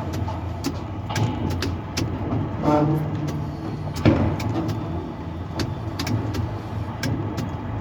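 Steady low machinery hum from a working tower crane, with many sharp clicks scattered through it and a brief pitched tone about two and a half seconds in.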